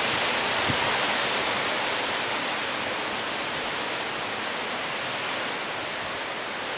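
Steady rushing hiss of strong storm wind, easing slightly over the few seconds.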